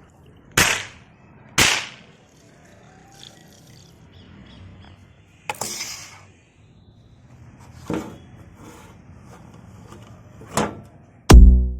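Toy match gun firing five single shots, sharp cracks spaced one to three seconds apart, each with a short ringing tail. Electronic music with a heavy beat starts just before the end.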